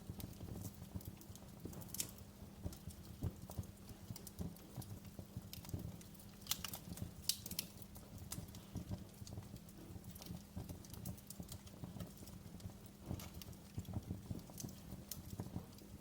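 Wood fire in a fireplace crackling, with frequent irregular sharp pops and snaps over a steady low rumble of flame.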